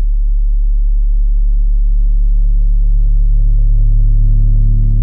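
B2 Audio Rampage 6.5-inch subwoofer in a rear-loaded horn enclosure playing a steady 36 Hz test tone: a deep, even hum with overtones above it. It grows slowly louder as the volume is raised during an SPL test.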